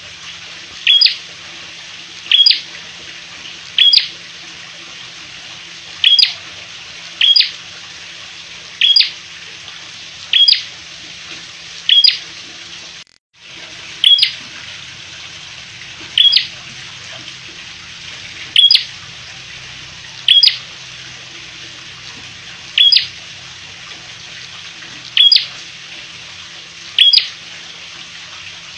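Caged prenjak songbird calling over and over: single sharp, high chirps, each a quick sweep, about one every one and a half seconds, over a steady hiss.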